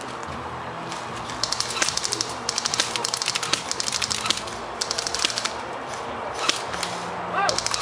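Airsoft guns firing on full auto: several bursts of rapid clicking pops, each about a second long, with more than one gun shooting at once.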